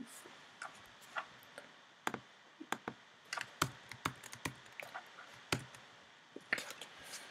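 Irregular clicks and taps of a computer keyboard and mouse being operated, a dozen or more short clicks spread unevenly.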